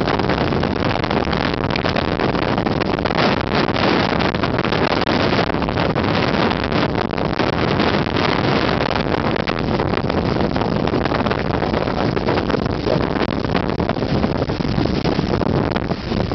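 Steady loud rushing noise of a typhoon: wind buffeting the microphone together with the rush of storm wind and water.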